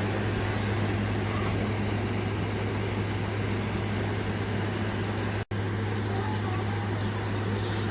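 Frigidaire FFRA051WAE 5,000 BTU window air conditioner running: a steady rush of fan air over a constant low hum.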